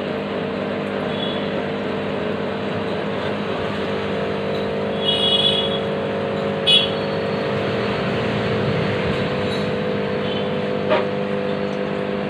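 A steady mechanical hum with constant tones, broken by a few short high-pitched chirps, the loudest about five and seven seconds in.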